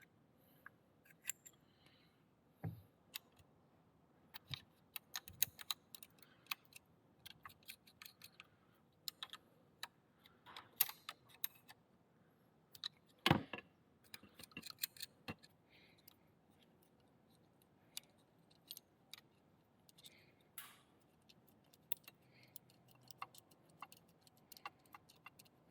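Faint, scattered clicks and light metallic clinks of hand tools and small fasteners as the cover over a two-stroke's exhaust power valve (YPVS) is taken off, with a sharper knock about thirteen seconds in.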